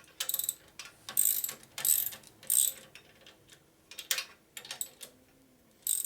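Hand ratchet wrench worked in a run of four short ratcheting strokes, followed by a few separate metallic clicks near the end.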